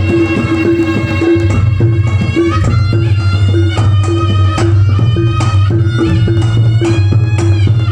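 Javanese gamelan playing a langgam with kendang drumming, loud through a sound system. A mid-pitched note repeats about twice a second over a deep steady bass, with a bending melody line above.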